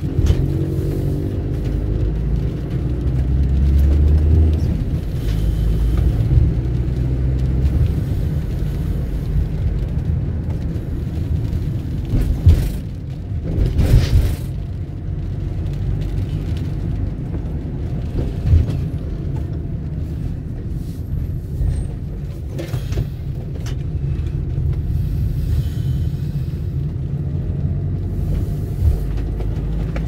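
Steady low rumble of road traffic, with a few brief knocks around the middle.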